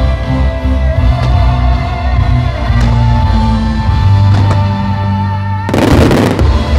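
Background music with steady bass and sustained tones, with a few faint firework bangs beneath it. About six seconds in, a brief loud burst of firework crackle.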